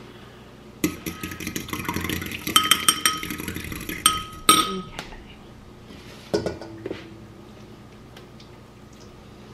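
A metal fork clinking and scraping against dishes, a quick run of ringing taps lasting about four seconds, then a single knock a couple of seconds later.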